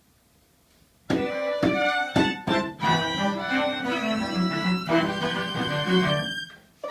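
String quartet playing a new contemporary piece in rehearsal. About a second in it enters suddenly with a few sharp, short chords, then plays on with dense bowed notes and breaks off abruptly near the end.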